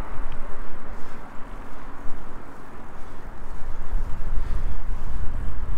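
Wind noise buffeting the microphone of a handlebar-mounted camera on a moving bicycle, mixed with road and traffic noise; the low rumble gets heavier near the end.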